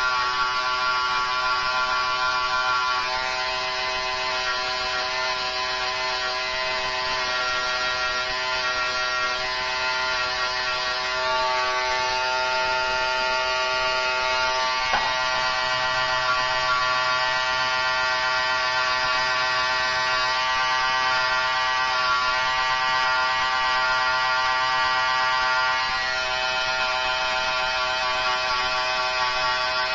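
Corded electric hair trimmer running with a steady buzz while it cuts a line design into short hair, its tone shifting a little as the blade moves; a short click about halfway through.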